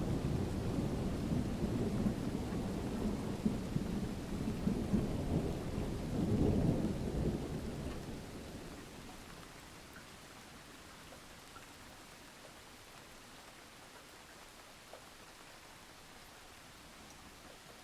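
A thunderstorm: a long, low roll of thunder over steady rain that dies away about eight to nine seconds in, leaving rain falling softly.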